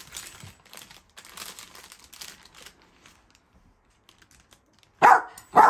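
Brown paper bag crinkling and rustling as it is handled, fading out after about three seconds. Near the end, a dog barks twice in quick succession, loudly.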